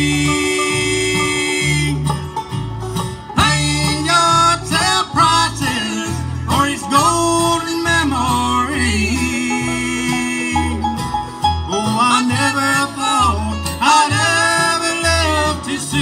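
Live bluegrass band playing, with banjo and acoustic guitar over bass notes that change on the beat.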